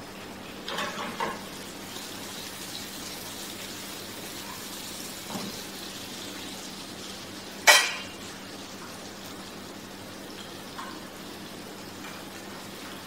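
Pans of sauce cooking on the stove with a steady sizzle, broken by a few light clinks of pans and utensils about a second in and one sharp, loud clatter of cookware a little past the middle.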